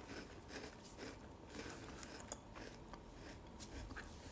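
Faint chewing and crunching of a dry chocolate-chip biscuit, in small irregular ticks.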